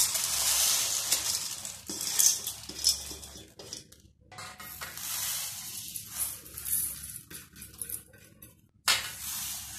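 Roasted dals poured from steel bowls onto a large stainless-steel platter: dry lentils rattling and pattering onto the metal, with clinks of bowl against platter, in three spells.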